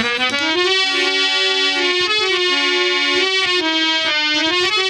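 Harmonium playing a melodic instrumental passage: long held reed notes that step from pitch to pitch.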